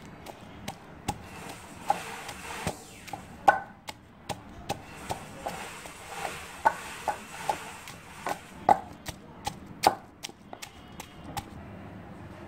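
Wooden pestle pounding fresh coriander, mint, chillies and garlic in a deep mortar, grinding them into a chutney paste. Sharp, uneven thuds come about one or two a second.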